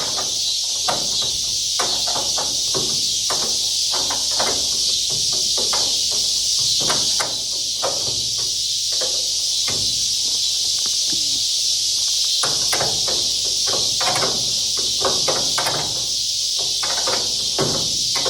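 Combination wrench clicking and clinking irregularly on the bolts as a hood latch is tightened onto a car hood, over a steady high insect chorus.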